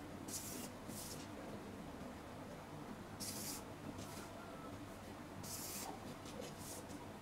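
Marker pen drawn along a ruler on pattern paper: several short, faint, scratchy strokes.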